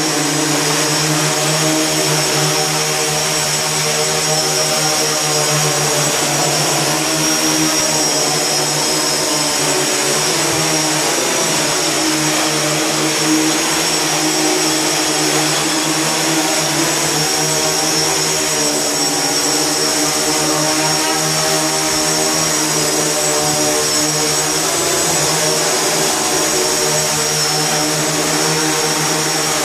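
X8 octocopter's eight electric motors and propellers buzzing steadily in hover, with a high whine above the hum. The pitch wavers as the motor speeds adjust, dipping and recovering about ten seconds in.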